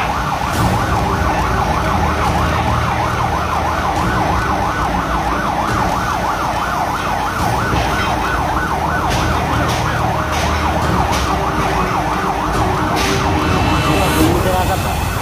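A fire engine's siren sounding in a fast, continuous warble over the low running of an engine.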